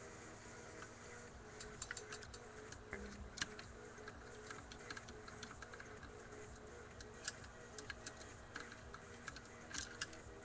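Faint, irregular small clicks and taps of a screwdriver and metal parts being handled while undoing small screws on an airsoft rifle, over a faint steady hum.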